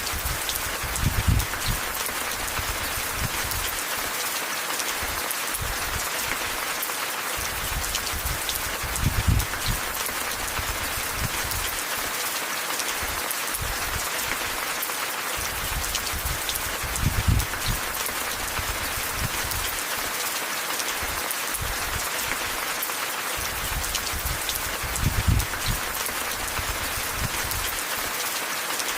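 Steady rain falling and pattering on surfaces, a dense even hiss. A short low rumble swells up about every eight seconds, four times.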